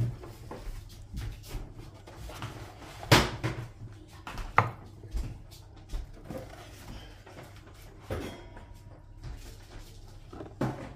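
Scattered knocks and clatters as a cardboard takeaway box and a white ceramic plate are handled on a wooden board, with the loudest sharp knock about three seconds in. Another clatter near the end comes as the bamboo satay skewers are tipped from the box onto the plate.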